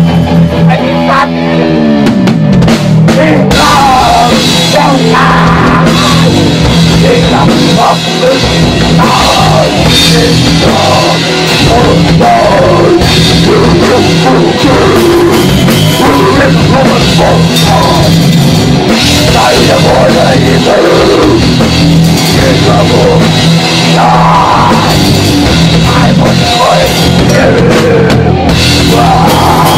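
Loud heavy rock music driven by a drum kit.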